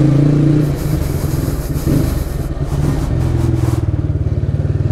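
Motorcycle engine running steadily at low speed, its note rising and falling slightly as it rolls along.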